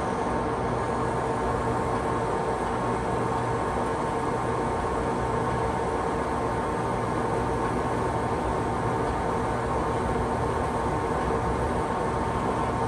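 National hollow-spindle lathe running under power, a steady mechanical drone with a constant whine held throughout.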